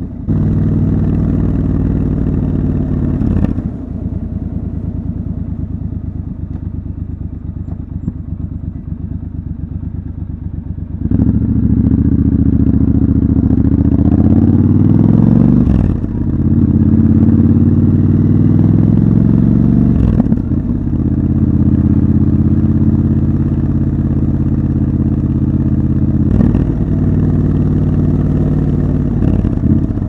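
Triumph Scrambler 1200 XC's parallel-twin engine heard from the rider's seat. It runs low and quieter for several seconds, then about eleven seconds in pulls harder with rising pitch. Brief dips at the upshifts break it before it settles into a steady cruise.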